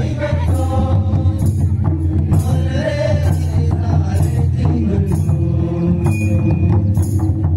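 Karam dance music: singing over percussion that keeps a steady beat, about two strokes a second, with a jingling, tambourine-like edge.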